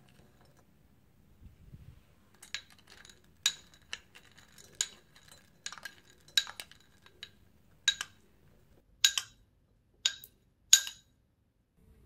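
Raisins and sultanas scraped from a ceramic dish into a glass jar with a wooden spoon: about ten sharp, irregular clinks as the dish and spoon knock against the glass jar, each ringing briefly, with softer ticks of fruit dropping in between.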